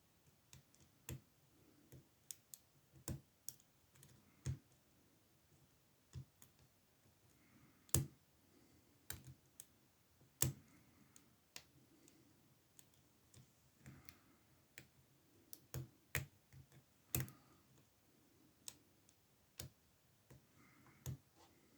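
Faint, irregular metallic clicks of a slightly bent half-diamond lock pick, used as a short hook, working the pin stack of an older Ruko oval cylinder in an ASSA padlock. The clicks come one to a few a second, with louder ones about eight, ten and seventeen seconds in.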